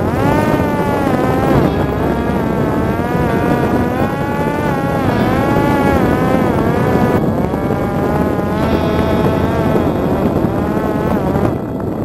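Parrot Disco fixed-wing drone's electric motor and propeller whining in flight, the pitch rising and falling as the throttle changes, with wind rushing over the onboard microphone.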